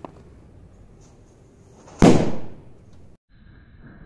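A Duck Brand Diwali cracker bomb exploding with a single loud bang about two seconds in, dying away within about half a second.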